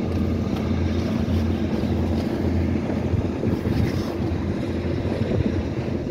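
A boat's engine running steadily with a low drone, with wind buffeting the microphone.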